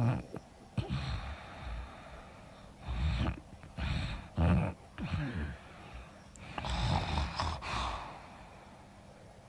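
A sleeping woman snoring through an open mouth: uneven short snores and breaths, the loudest about four and a half seconds in, then a longer breathy one shortly after.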